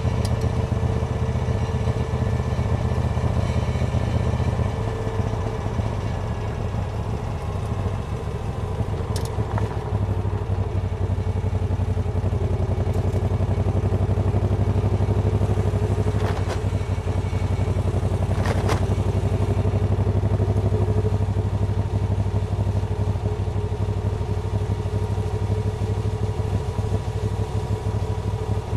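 Moto Guzzi California II's V-twin engine running steadily while under way, heard from the rider's seat. The engine note drops about five seconds in, and a few sharp clicks sound around the middle.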